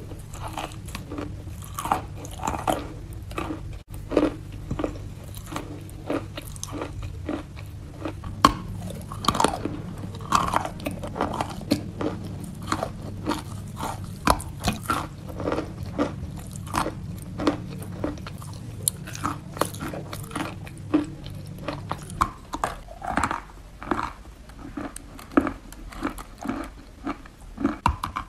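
Wet sawn chalk being bitten and chewed close to the microphone: a run of irregular sharp crunches and wet chewing. A steady low hum runs underneath and stops about three-quarters of the way through.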